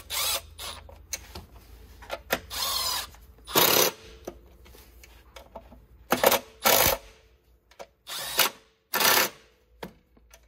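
Cordless ratchet running in several short bursts, seven or so, with pauses between, as it runs the throttle-body bolts down one after another in a crisscross pattern.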